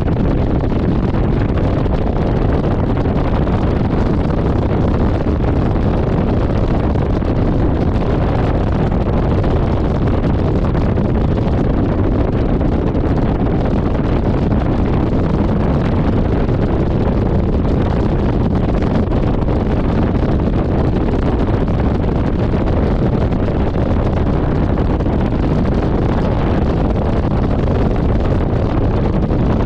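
Steady wind rush on the microphone of a camera riding on a motorcycle at an easy pace on wet road, with the bike's running noise underneath.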